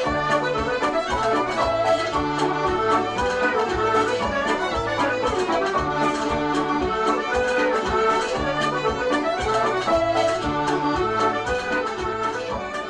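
Instrumental Irish traditional tune with a melody over a steady, alternating bass, beginning to fade out near the end.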